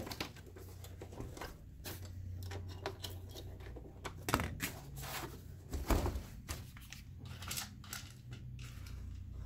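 Plastic projector housing being handled and turned over on a cardboard-covered bench: scattered clicks, knocks and rustles, with a louder knock about four and a half seconds in and a thud about six seconds in, over a low steady hum.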